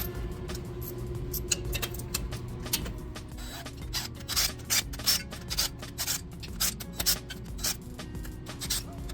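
Background music with steady low held tones. From about four seconds in, a quick irregular run of sharp clicks and scrapes joins it.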